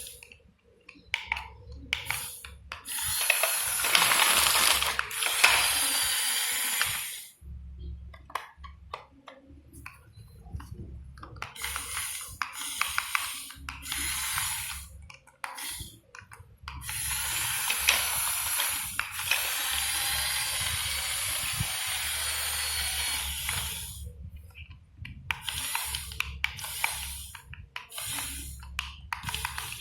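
Radio-controlled model excavator and truck working, their small motors running in stop-start bursts of hissing mechanical noise, each a second to several seconds long.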